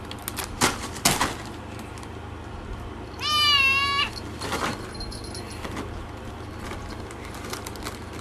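A cat meows once, a drawn-out meow of about a second with a wavering pitch, roughly three seconds in. Two short sharp clicks come in the first second or so, over a steady background hiss.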